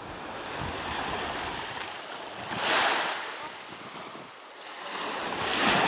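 Sea surf breaking and washing up the beach, with two louder surges of wash about three seconds apart, one near the middle and one at the end.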